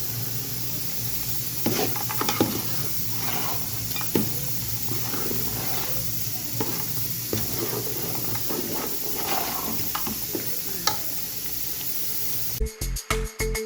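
Food sizzling as it fries in a pan, with a spoon stirring and scraping against the pan at irregular moments. Music cuts in near the end.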